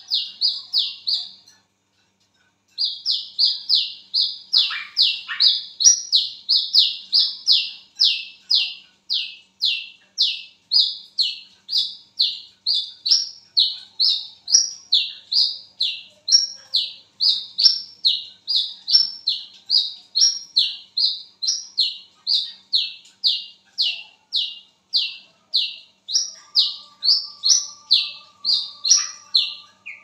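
Brown-throated sunbird (kolibri kelapa, 'wiceh') calling. A short burst of notes and a brief pause lead into a long, even run of sharp, high, falling notes, about two a second.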